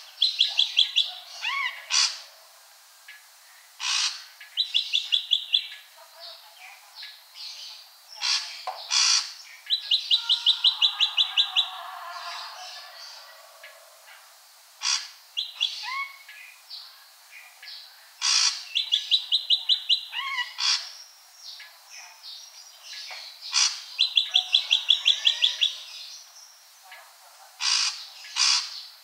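Ashy drongo singing: sharp single calls alternating with rapid runs of clipped notes, about six a second, the pattern repeating several times.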